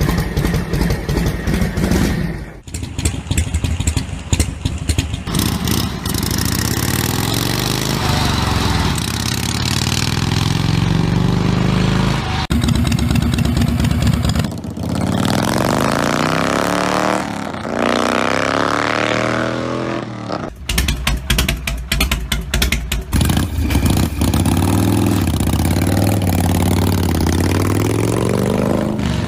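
A series of Harley-Davidson V-twin motorcycle engines, cut abruptly one after another, each idling with a lumpy exhaust beat and then being revved so that its pitch rises and falls, several times over.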